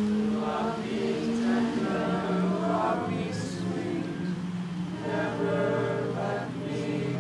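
A crowd of people singing a slow song together without accompaniment, holding long notes.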